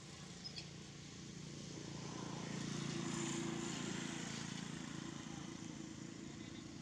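A distant engine passing by, a low steady hum that grows louder to a peak about three seconds in and then fades. Two faint short ticks about half a second in.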